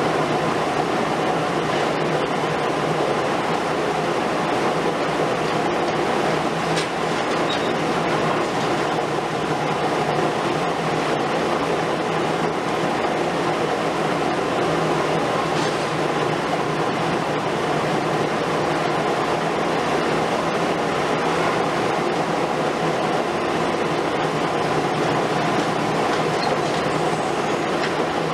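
Heavy demolition excavators working steadily: a long-reach Liebherr R 950 Demolition and wheeled excavators running their diesel engines and hydraulics, with masonry crumbling as the long front tears into the building.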